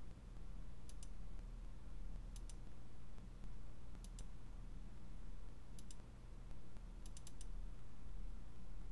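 Computer mouse button clicks, each a quick press-and-release pair of ticks, coming every second or two as the points of a line are placed, then a quicker run of clicks near the end. A low steady hum lies underneath.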